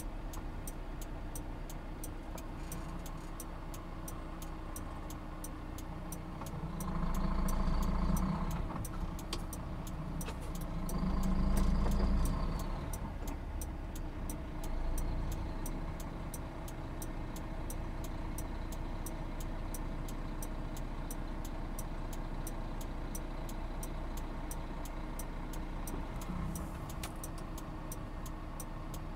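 Engine and road noise inside a moving truck cab at highway speed, steady, with an even ticking of about three clicks a second throughout. The noise swells louder twice, about seven and eleven seconds in.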